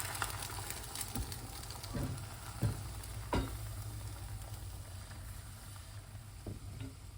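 Beaten egg mixture for tamagoyaki sizzling in a hot oiled frying pan, the sizzle fading gradually, with a few light knocks against the pan in the first few seconds.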